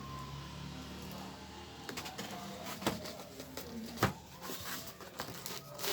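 Handling noises: scattered clicks, taps and light rustling, with a few sharper knocks, after a steady low hum in the first two seconds.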